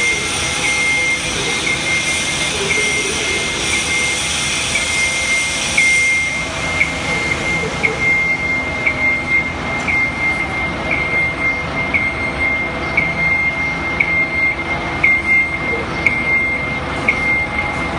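Genie GS-1930 electric scissor lift driving, its motion alarm giving a steady high tone that pulses about twice a second over the whir of the drive.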